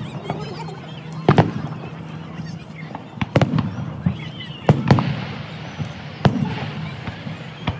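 Aerial firework shells bursting: about six sharp bangs, a couple of them in quick pairs, with a crackling hiss from glittering stars about five seconds in.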